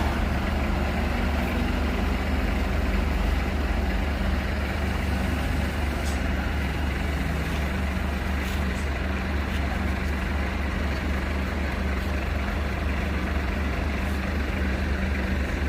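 Heavy vehicle's diesel engine running steadily at low revs, a deep even rumble that holds throughout.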